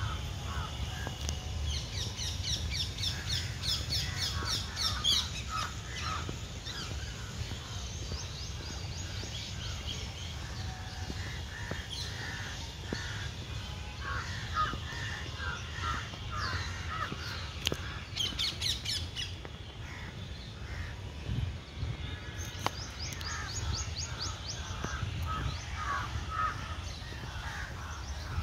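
Birds calling in a park: crows cawing, with several bursts of rapid high chirping trills from smaller birds, over a steady low rumble.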